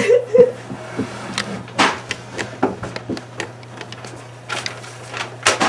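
Scattered knocks and clicks of handling and movement in a small room, over a steady low hum.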